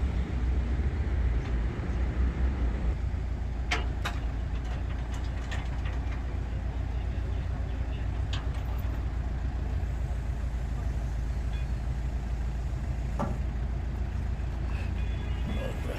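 A steady low mechanical hum, with a few sharp clicks or taps scattered through it.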